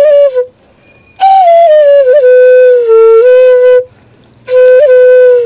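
Bansuri (bamboo flute) playing a slow melody: long held notes with quick ornamental flicks between them. The melody breaks into phrases, with a short pause just after the start and another about four seconds in.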